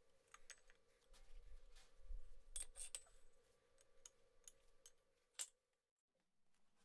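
Faint, scattered small clicks and clinks of hard objects being handled, over a faint steady hum; the sound cuts out completely about five and a half seconds in.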